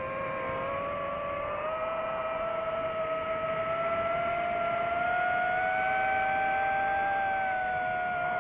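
FPV quadcopter's electric motors and propellers whining, a chord of several pitches climbing gradually as the throttle rises and easing slightly near the end.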